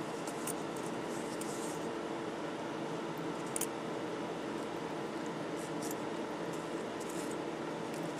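Small pieces of metal jewellery faintly clicking against each other as fingers sort through them in a small jewellery case, over a steady background hum.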